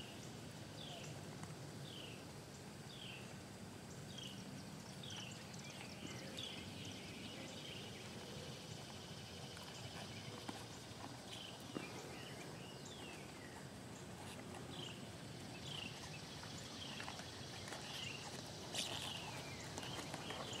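Horse's hoofbeats on a sand arena, soft and muffled at walk and trot. Behind them, a bird repeats a short falling chirp about once a second, pausing for a few seconds midway.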